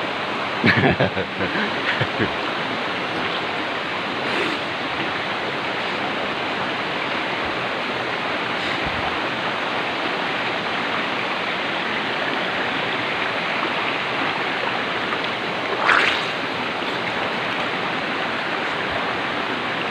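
Steady rush of a small river cascade pouring into a rock pool, with a few brief splashes of a bather moving in the water near the start and a louder one about sixteen seconds in.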